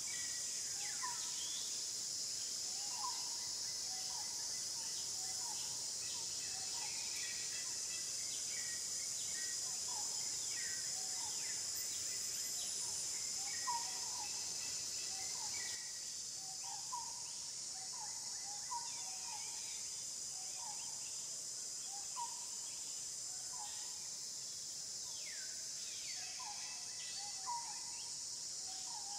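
A steady, high-pitched insect drone with short bird chirps repeating every second or two, and now and then a falling call.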